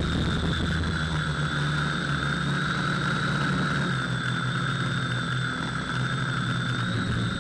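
FPV quadcopter's electric motors and propellers whining steadily at a held throttle, the pitch wavering slightly.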